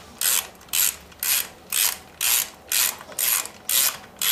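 A ratchet wrench worked in short, even strokes, about two a second, each back-swing giving a brief burst of rapid pawl clicks; the strokes stop near the end.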